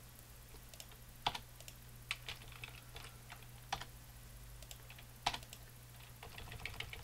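Sparse, irregular keystrokes and clicks on a computer keyboard and mouse as Blender keyframes are set, faint over a steady low hum.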